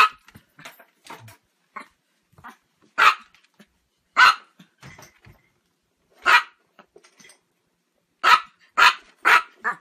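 A dog barking: sharp single barks a second or two apart, then four barks in quick succession near the end.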